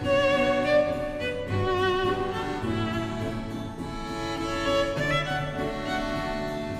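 Background music led by violin over bowed strings, playing slow sustained notes.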